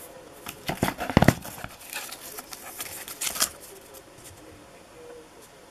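Paper-wrapped firework tubes and cardboard fountains being handled and shifted in a cardboard box: a run of rustling and scraping, busiest about a second in, with a second flurry about three and a half seconds in.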